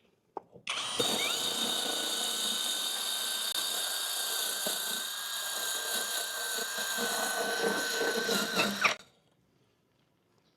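Dekton 100 Nm drill core-drilling a 10 cm wall: a steady high motor whine over grinding, running for about eight seconds and then stopping suddenly.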